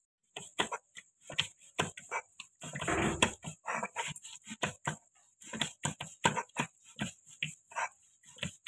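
Stone roller grinding spices on a flat grinding stone (sil-batta): quick rhythmic strokes, about two a second, with a longer scrape about three seconds in.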